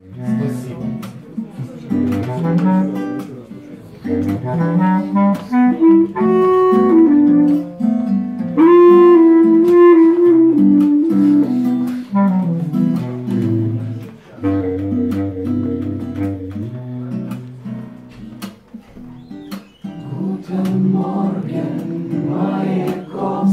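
Bass clarinet playing a low, slow melody of held notes over strummed acoustic guitar: the instrumental introduction of a song.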